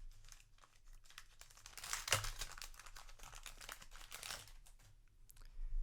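Foil trading-card booster pack crinkling and tearing as it is opened by hand: an irregular crackling rustle, loudest about two seconds in and again near four seconds.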